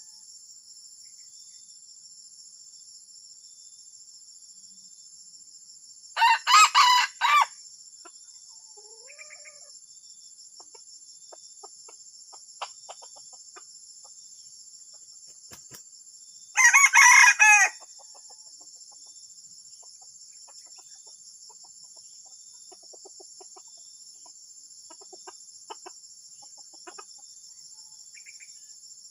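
Junglefowl rooster crowing twice, each a short crow of about a second, roughly ten seconds apart, with a few faint chirps between. A steady high insect drone runs underneath.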